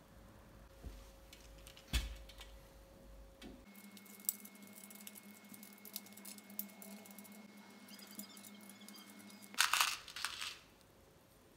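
Thin steel bicycle spokes clicking and rattling against each other and the hub while a wheel is laced by hand, with a louder burst of handling noise about ten seconds in.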